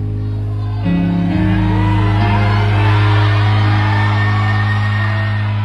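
Live band holding a sustained closing chord, with a crowd cheering and screaming that rises about a second in.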